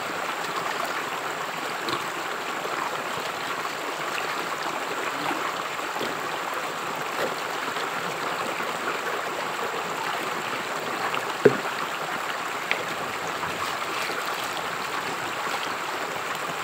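Shallow stream running over rocks, a steady babble of water. A single sharp knock sounds about eleven seconds in, with a fainter one a second later.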